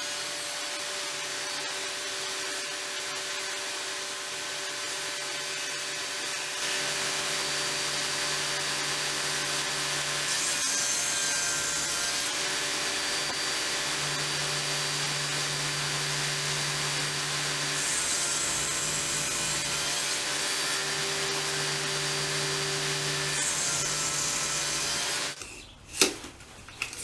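Table saw running with a steady hum while the blade cuts through pieces of wood several times, the sound brightening during each cut. The saw stops near the end, followed by a few knocks.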